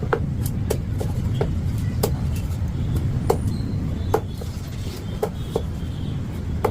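Sharp, irregular knocks and clicks of a knife working on a barramundi, about a dozen over several seconds, over a steady low traffic rumble.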